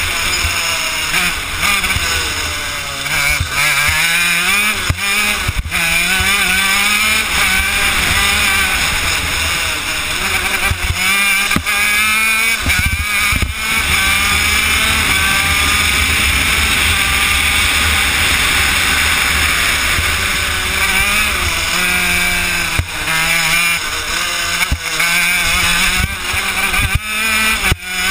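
Honda CR80 80cc two-stroke single-cylinder shifter kart engine at speed, its pitch climbing and falling again and again as the kart accelerates and slows through corners, with a few brief drops in sound.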